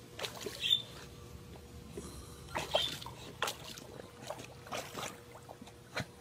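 Water splashing and sloshing in short, irregular spells as a West Highland white terrier paddles through a swimming pool, with one sharp splash near the end.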